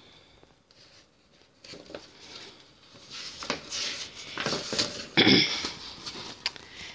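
A page of a hardcover picture book being turned: paper rustling and sliding, building from about two seconds in to its loudest swish a little past five seconds.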